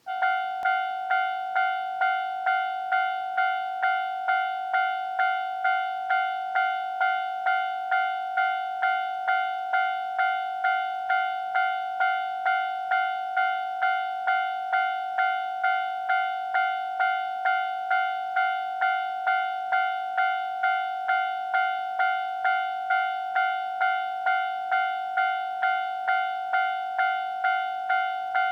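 Japanese railway level-crossing warning bell at a third-class crossing (alarm without barriers), starting suddenly and ringing a steady, repeated clanging tone just under two strikes a second. It warns that a train is approaching.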